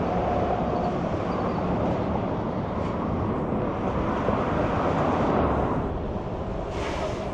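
Highway traffic going by: a steady rumble of tyres and engines from passing vehicles, swelling about five seconds in and easing off, with a short hiss near the end.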